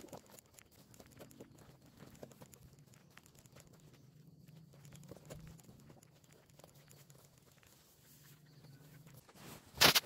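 Green corn husks being torn and crinkled by hand, with many small irregular crackles and one much louder burst near the end.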